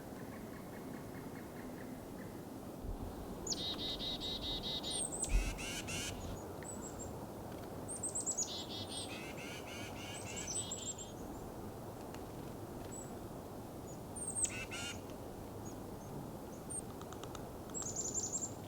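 Songbirds singing in the wild: two long trilled phrases, about four seconds in and again around eight to eleven seconds, plus scattered short high chips and a brief trill near the end, over a steady low rushing background.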